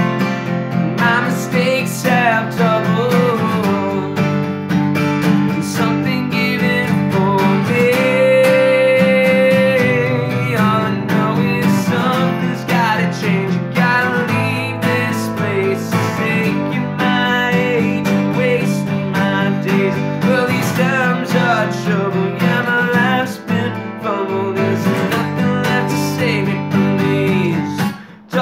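Two acoustic guitars, one a Fender cutaway, strummed together, with a man singing over them. The playing dips briefly near the end.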